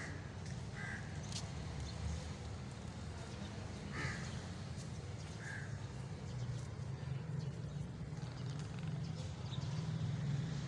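Crows cawing, a few short single caws spaced irregularly, over a steady low rumble.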